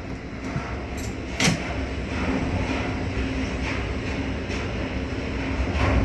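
Steady low machinery rumble and hum of a Panamax ship-to-shore container crane, heard from the operator's cab, with a sharp metallic click about a second and a half in and another near the end.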